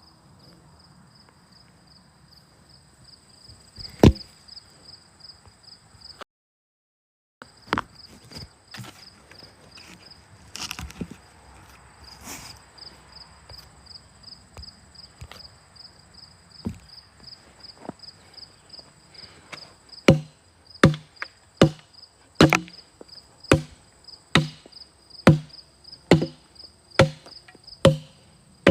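Hatchet chopping into a wooden log, chipping out the chunks between chainsaw waffle cuts. There is one heavy blow about four seconds in and scattered lighter ones after it, then a steady run of strokes about every three-quarters of a second in the last third. Insects chirp steadily behind it.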